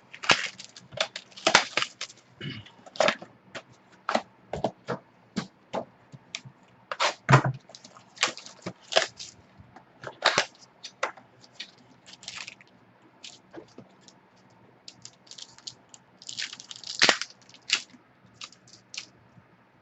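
Trading-card packaging being torn open and handled: irregular crinkling, crackling and snapping of wrappers and cardboard, with a few longer tearing rustles.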